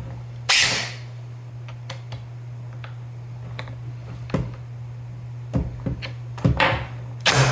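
Scattered small clicks and taps of hand tools and airsoft gun parts being handled while a screw is worked in, with a short hiss about half a second in and another near the end, over a steady low hum.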